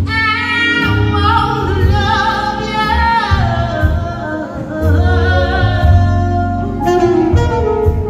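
A woman singing a soulful melody into a microphone, her voice gliding between long held notes, over a live band with a bass line and saxophone.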